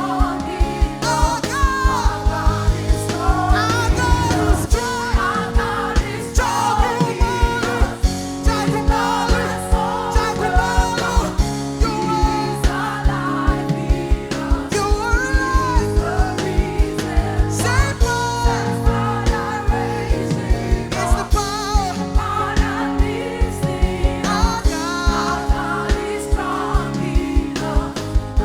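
Live gospel worship music: a voice sings gliding, drawn-out lines over held keyboard chords and a steady drum beat.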